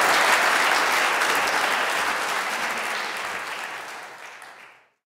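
Audience applauding, dying away over the last two seconds and cut to silence just before the end.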